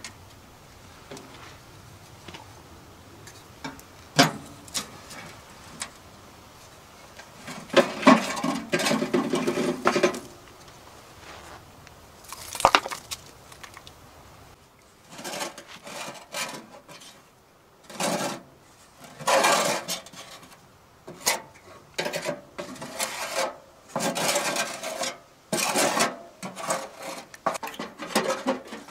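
Metal clanks, scraping and rattling from a small stainless steel wood stove as its doors are opened and its expanded-metal grate is lifted out and the ash in the firebox is cleared. A couple of sharp clicks come early, then a long run of short scraping, rattling bursts through the second half.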